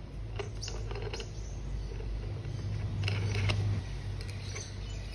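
Light clicks and scrapes of a nut being spun by hand onto the centre bolt of a lawnmower's recoil pull starter, the plastic pulley and metal housing shifting in the hands, with a louder patch of handling about three seconds in over a low steady hum.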